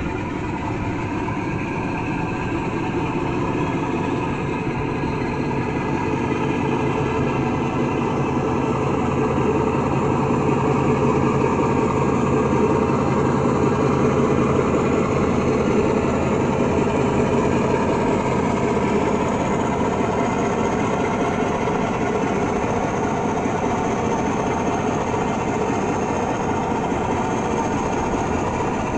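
Recorded Sulzer 12LDA28 diesel engine sound of a Class 47, played by a DCC sound decoder through an O gauge model's speaker. The engine note builds to its loudest about halfway through as the loco runs in, then eases a little as it comes to a stand.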